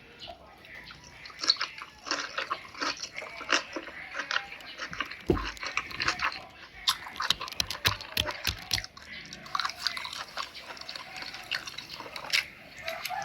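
Someone eating: wet chewing and mouth smacking, with many quick irregular clicks.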